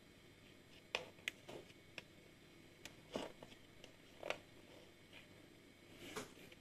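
A handful of faint, irregular clicks and scrapes: a turtle's claws and shell on a hard wooden floor as it walks and is handled.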